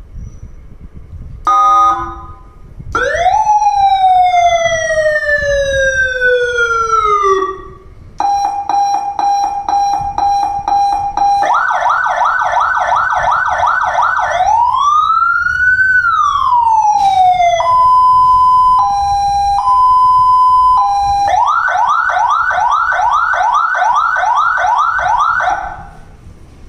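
Electronic siren of an ambulance/police LED bar light, played through its built-in speaker and switched through its tones in turn: a short chirp, a long falling tone, a steady tone, a fast yelp, a slow rising-and-falling wail, a two-tone hi-lo, then the fast yelp again.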